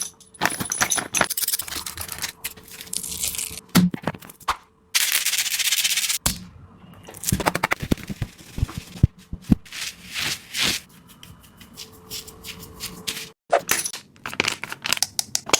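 Taba squishy, a ball made of layered sticky tape, being squeezed and handled: crinkling and crackling of the tape with many sharp clicks, in stretches of a second or two broken by short pauses.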